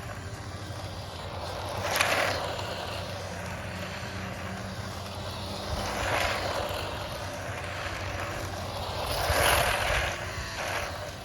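Rastar LaFerrari remote-control toy car driving outdoors: its small electric motor whirring and its tyres rolling, swelling and fading three times as it passes and turns.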